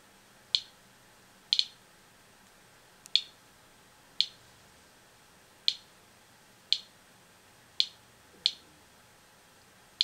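Inspector Alert Geiger counter clicking once for each detected count: short, sharp clicks at random, uneven intervals, about one a second, with two almost together about one and a half seconds in. The counter is registering background radiation with the seaweed sample removed.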